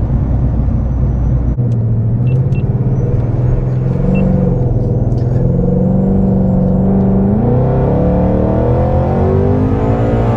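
Heavily modified Ford Mustang Mach 1's Coyote 5.0 V8 under hard acceleration, heard from inside the cabin: a steady, loud engine note that climbs in pitch through the second half, with a faint high whistle rising over it.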